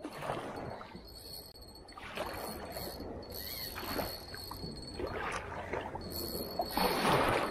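Small waves washing against the rocks of a groyne in repeated surges, the biggest near the end, with a thin steady high-pitched tone underneath.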